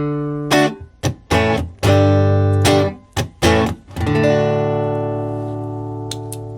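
Guitar played through a Mosky Audio Spring Reverb pedal: a few quick strummed chords, then a chord about four seconds in left ringing and slowly fading.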